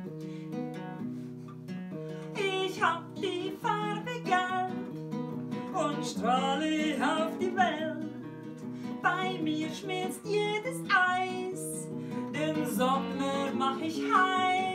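Acoustic guitar strummed with a woman singing along; the guitar plays alone at first and her voice comes in about two seconds in.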